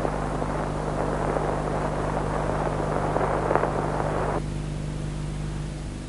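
Crackle and hiss of an old film print's soundtrack with no music on it, over a steady low hum. The crackle cuts off suddenly about four seconds in, leaving a fainter hiss and hum.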